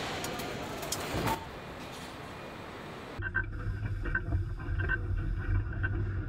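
Tractor assembly hall ambience: an even wash of machinery noise with a couple of clicks, which changes abruptly about three seconds in to a steady low hum with faint repeated clicks.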